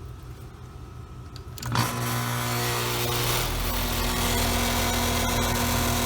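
Carrier heat pump starting up: a click about two seconds in, then a steady loud mechanical hum, with a deeper rumble joining about a second and a half later.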